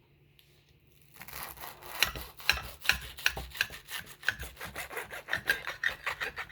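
Knife sawing back and forth through a sourdough sandwich, a rasping stroke about three to four times a second, starting about a second in.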